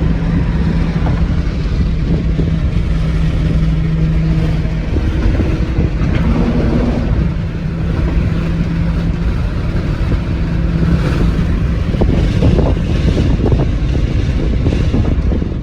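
A car driving at a steady speed: a low engine drone over road rumble, with wind buffeting the microphone.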